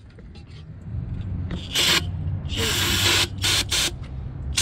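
Aerosol can of Gumout carb and choke cleaner spraying in a series of short hissing bursts, the first a little under two seconds in and the longest about half a second.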